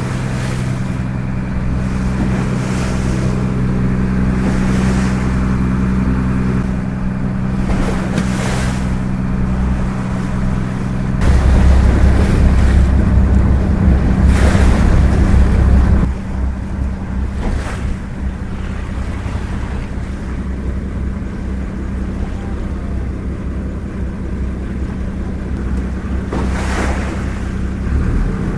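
A small boat's motor running steadily, with water washing against the hull in occasional swishes and wind buffeting the microphone, the wind rumble heavier for several seconds about a third of the way in.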